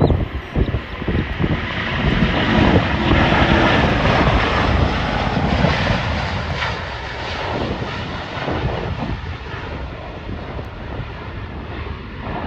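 Airbus A350's Rolls-Royce Trent XWB turbofans at takeoff thrust as the jet climbs away, swelling to a peak a few seconds in and then slowly fading. Wind buffets the microphone in the first couple of seconds.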